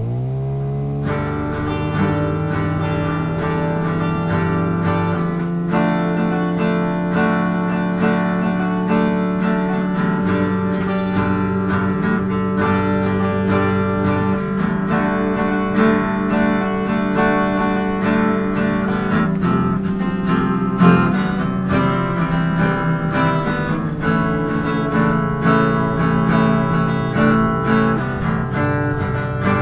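Background music: strummed acoustic guitar playing steady chords.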